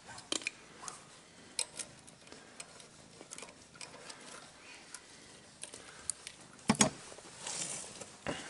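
Scattered light metallic clicks and ticks of tools working the master link off a minibike's roller drive chain, with a louder double clank of metal late on.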